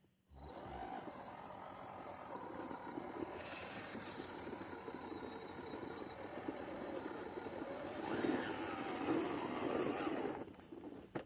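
Electric motor and gearbox of a 1:12-scale RC 4x4 crawler whining under load, a thin high steady tone over rough rattling. It begins abruptly, grows busier and louder about eight seconds in, and dies away near the end.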